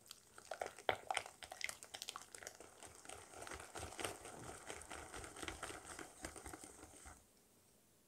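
Hand whisk beating oil and vanilla into a creamed butter-and-sugar batter in a glass bowl: a fast, continuous run of wet clicking and swishing as the wires strike the bowl and churn the mixture. It stops abruptly about seven seconds in.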